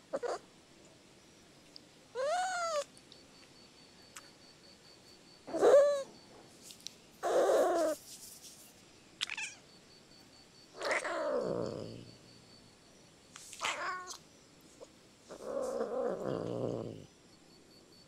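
Domestic cat meowing repeatedly, about seven separate calls a second or two apart. The first few are short meows; the later ones are longer, drawn-out calls that slide down in pitch.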